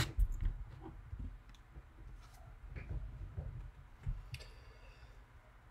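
Scattered soft clicks and light knocks of things being handled at a computer desk, with a brief rustle about four and a half seconds in, as spilled water is dealt with.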